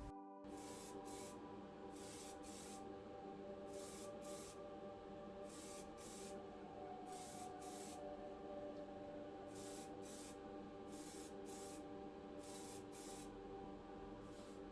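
Short hissing spray bursts, fired in quick pairs about a pair every one and a half to two seconds, over a steady low hum.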